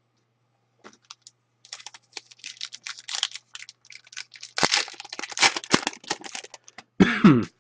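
A hockey card pack being opened and its cards handled: a rapid, uneven run of crinkling and clicking from the wrapper and the cards, densest in the middle.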